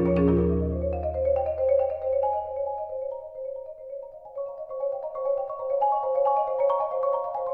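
Background music: a light melody of short struck notes in a repeating pattern. Low held notes underneath fade out over the first two seconds.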